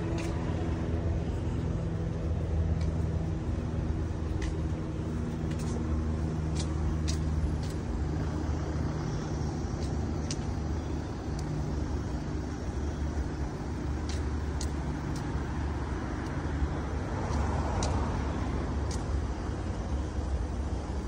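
City road traffic: a steady low hum of car engines from slow, queued traffic, with a few light clicks scattered through it.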